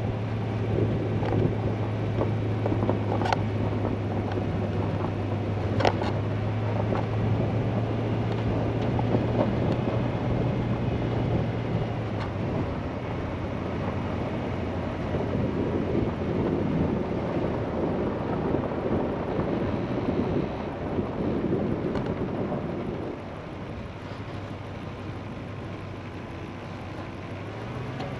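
A vehicle driving slowly over a rough dirt track: a steady engine hum under the rumble of tyres on dirt and gravel. There are a couple of sharp knocks a few seconds in, and the noise drops quieter near the end.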